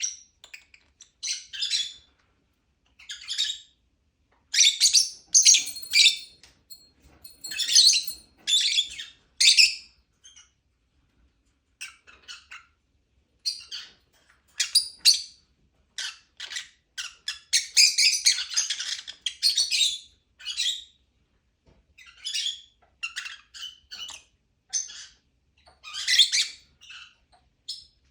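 Lovebirds chirping and squawking in short, shrill bursts and clusters with brief pauses between them.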